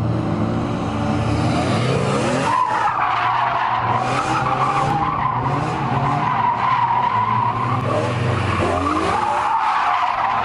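Rear-wheel-drive BMW convertible drifting. The tyres squeal steadily from about two and a half seconds in, over the engine revving up and down.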